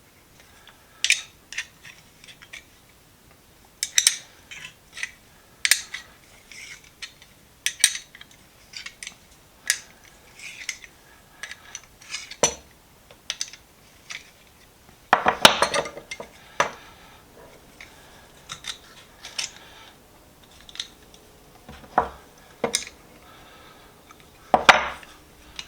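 Steel hand tools (pliers and wrenches) being handled and set down, clinking and tapping against each other and the bench in irregular knocks, with a longer, louder rattle about fifteen seconds in.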